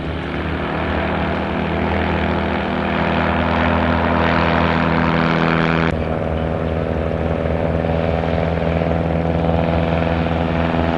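Light propeller airplane's piston engine running at full power for a short-field takeoff run, growing louder over the first few seconds. The tone changes abruptly about six seconds in.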